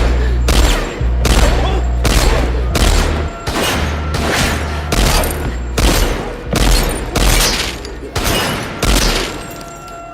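A hip-hop beat with deep sustained bass notes, overlaid by a string of loud gunshots with echoing tails, one about every three quarters of a second. It fades down near the end.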